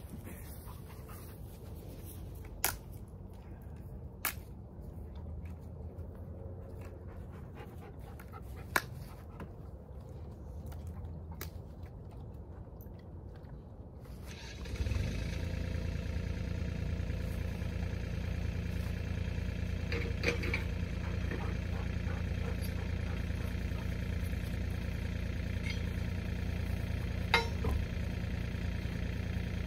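An excavator's engine starts just under halfway through and then runs steadily at idle. Before it starts there is only a quiet background with a few sharp clicks, and more clicks fall over the engine near the end.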